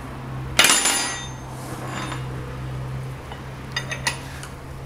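A metal wrench clinks once against a bare four-cylinder engine block, ringing briefly, about half a second in, while the crankshaft is turned by hand; a few lighter metallic clicks follow near the end.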